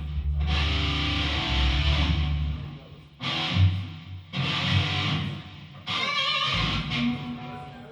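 Electric guitar playing the break section of a rock song: one long ringing chord, then three shorter chord hits with short gaps between them.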